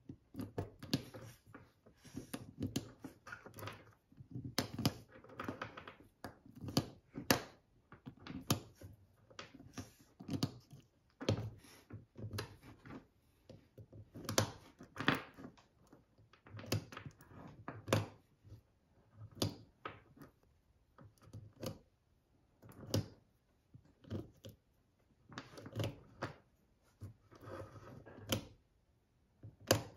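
Small .22LR rimfire cartridges clicking and clinking as they are picked from a loose pile and pushed one by one into the holes of a plastic ammo tray. The clicks are irregular, one or two a second.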